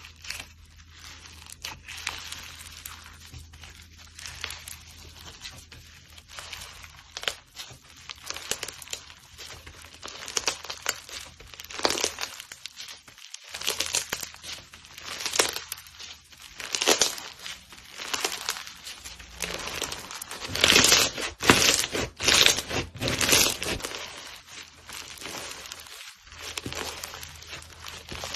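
Slime being squeezed and stretched by hand, giving irregular crackling and crinkling bursts that grow louder and denser in the second half.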